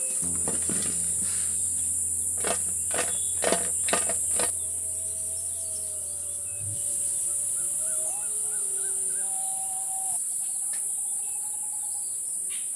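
Steady high-pitched chorus of crickets, with several sharp clicks in the first four seconds.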